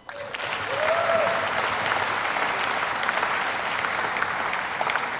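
Audience applauding steadily, beginning abruptly as the speech pauses and holding an even level.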